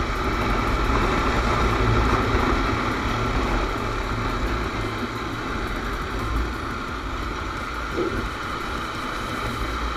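Riding noise from a Honda CBR250R cruising at about 55–65 km/h: steady wind rush on the microphone over the single-cylinder engine's hum and road noise. It eases slightly after the first couple of seconds as the bike slows.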